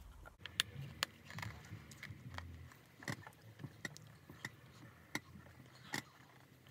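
Faint, scattered small clicks and light rubbing from fingers twisting a lock of hair, with a low room hum underneath.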